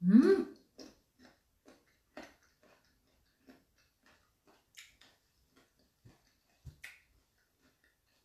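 A short rising 'mm' from the eater, then irregular crisp crunches and clicks of chewing raw mango close to the microphone.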